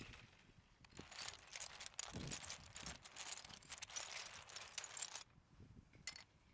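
A LEGO train (the blue 60052 cargo locomotive) running on plastic track, its wheels rattling and clicking quickly over the track joints. The clicking thins out about five seconds in.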